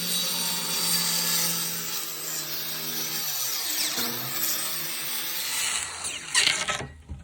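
Electric power saw cutting a wooden flooring plank: the motor runs at speed, its pitch sags under load partway through the cut, then it winds down and stops near the end with a couple of knocks.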